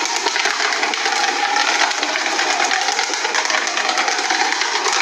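Shredding machine grinding material, a loud dense rapid rattling and crunching that starts suddenly.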